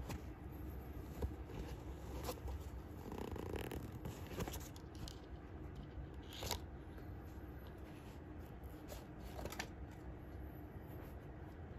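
Faint handling noise of a trail running shoe and its card hang tags being turned over in the hands: scattered light taps and rustles over a low steady rumble.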